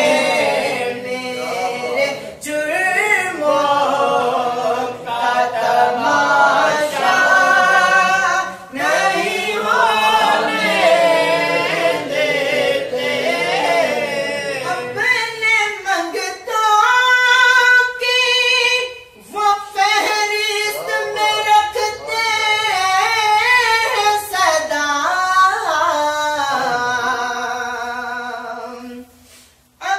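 A naat, a devotional poem in praise of the Prophet, sung unaccompanied with no instruments. The voice sings ornamented phrases with long held notes, and breaks off briefly near the end.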